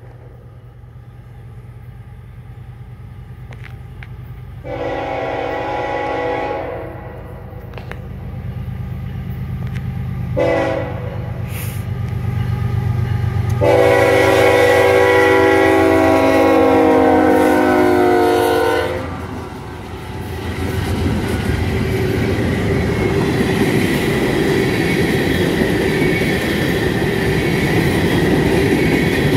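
Nathan K5HL five-chime air horn on an approaching diesel freight locomotive: one long blast, a short one, then a long blast of about five seconds, over the rising rumble of the locomotive's engine. After the horn the freight cars roll past with a steady rush of wheels on rail.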